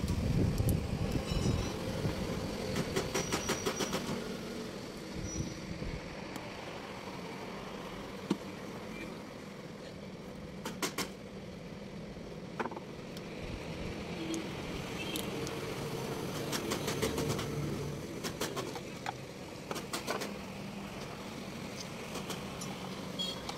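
Short clicks and rattles of a screwdriver working screws out of a plastic car headlight housing, some in quick runs, over the steady rumble of road traffic, which is loudest in the first few seconds.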